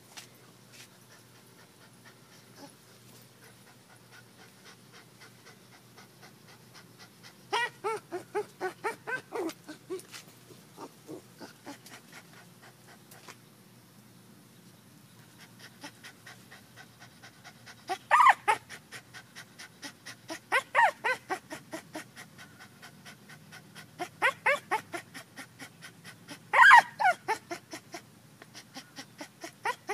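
Pit bull puppy panting in quick rhythmic runs, about three to four breaths a second, starting about a quarter of the way in. In the second half there are four louder, more voiced bursts among the panting.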